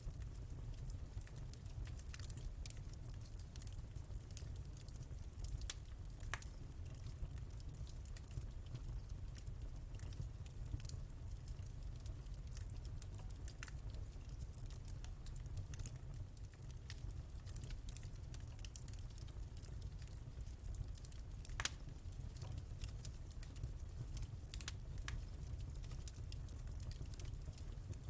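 Wood fire crackling: irregular sharp snaps and pops over a steady low rumble of the flames, a few louder pops scattered through.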